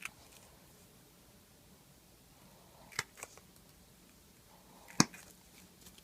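A few sharp clicks and taps of a hand tool against a shaving brush handle while old glue is being dug out. Two come close together about three seconds in, and a louder one about five seconds in.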